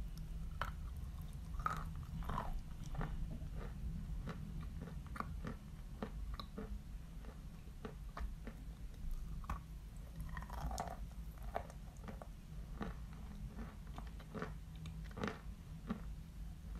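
Close-up biting and chewing of a damp block of Barsuk (Badger) chalk: frequent irregular crunches as pieces break off and are ground between the teeth, over a steady low hum.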